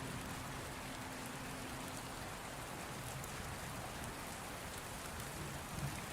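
Steady rain falling, an even hiss. A faint low hum fades out about two seconds in.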